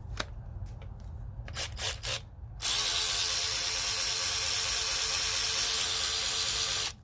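Hercules 3/8-inch extended-reach cordless electric ratchet with a brushed motor, running with no load at a steady speed for about four seconds, then stopping abruptly. A few sharp clicks come before it starts.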